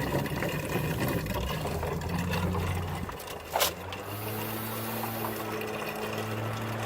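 Lawnmower engine running steadily in the background, its pitch shifting slightly about three seconds in, with one sharp click about half a second later.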